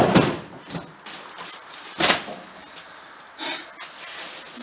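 Household belongings being handled while being sorted into bags: a sharp knock right at the start and another about two seconds in, with a fainter short sound near the end.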